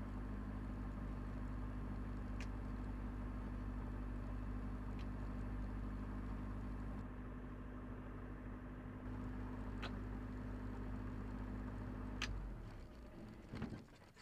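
Diesel engine of a Cessna 172 running steadily at idle, heard from the cockpit, then shut down about twelve seconds in, its hum winding down and stopping. A few sharp clicks come through while it runs, the loudest just as it stops.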